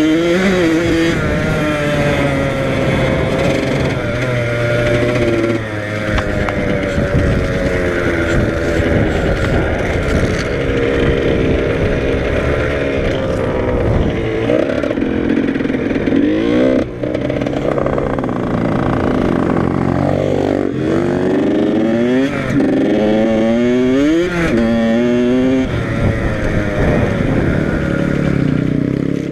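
Yamaha YZ85 two-stroke dirt bike engine under way, its pitch rising and falling with the throttle and gear changes. There is a brief drop in revs about 17 seconds in, then several quick rev swings up and down.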